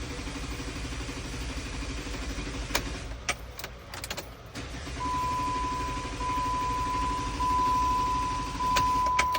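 Jeep Wrangler's 3.8-litre V6 being cranked over by the starter without catching, in two long cranks with a few sharp clicks between them as the key is cycled. A steady high warning tone from the dash sounds during the second crank, breaking briefly about every second and a quarter. The long crank and no-start come from a crank sensor connector with ruined, exposed wires.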